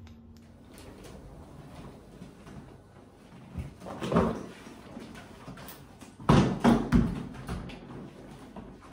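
A heavy suitcase, about 20 kg, knocking against the steps as it is hauled up a flight of stairs: one thump about four seconds in, then a quick run of loud thumps about two seconds later.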